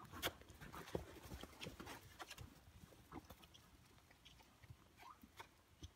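Faint, irregular soft thuds and clicks of a mustang walking under saddle on soft dirt.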